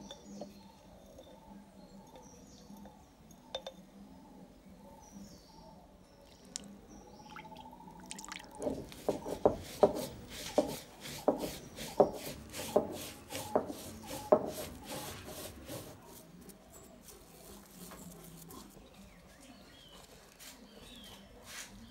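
Spices being ground by hand on a wet flat grinding stone with a stone roller: a run of about a dozen rhythmic knocking, scraping strokes, roughly one and a half a second, starting about eight seconds in and stopping some six seconds later.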